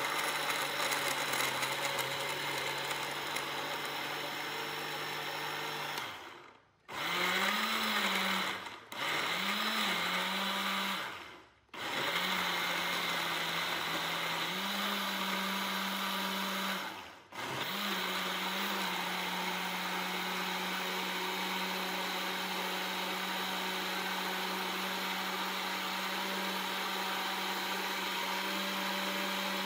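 Electric countertop blender motor running as it grinds chunks of radish and fruit into a paste. It is switched off and restarted about four times in the first eighteen seconds, rising in pitch each time it spins back up, then runs steadily.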